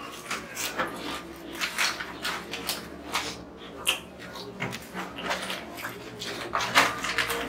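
Irregular crunching of crisp chips being bitten and chewed, with crinkling of a foil chip packet; the loudest crackles come near the end.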